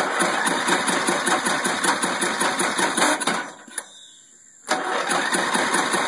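Riding mower's electric starter cranking the engine in two attempts, the second starting near the end; the engine turns over rhythmically but never fires. The kill switch is off, grounding the magneto, so the spark plug gets no spark.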